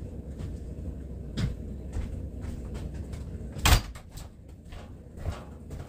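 A door banging shut once, sharply, about two-thirds of the way through, with a couple of lighter knocks before and after.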